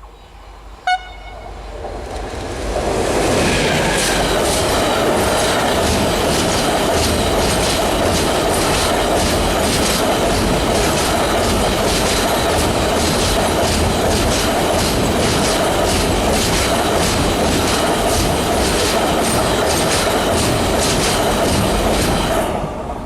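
Class E486 electric locomotive and its intermodal container freight train. A short horn blast sounds about a second in, then the train passes close by, with the steady rumble of the wagons and a regular clickety-clack of wheels over rail joints. The sound drops off just before the end.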